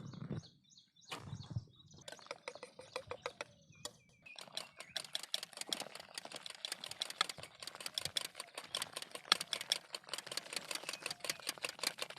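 Dutch baby pancake batter being beaten by hand in a bowl, the utensil clicking against the bowl; scattered strokes at first, then a fast steady run of clicks from about four seconds in.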